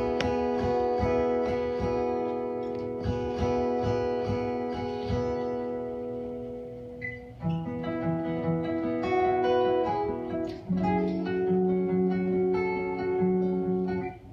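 Instrumental passage on acoustic and electric guitars: strummed chords with long held melody notes over them. Near the middle the music dips briefly and comes back with new sustained notes.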